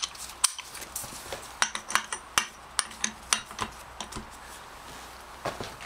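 Steel hand tools clinking: a socket and its bar knocked and fitted onto the clutch centre nut of an Aprilia Caponord ETV 1000 engine, a dozen or so sharp metallic clicks at uneven intervals.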